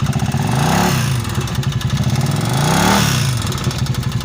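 Italika Vento 250 motorcycle's single-cylinder engine idling and blipped twice, its pitch rising and falling each time. The mechanic demonstrates an abnormal engine noise that he first suspects comes from the timing chain or its tensioner, and that he later traces to a failed crankshaft bearing.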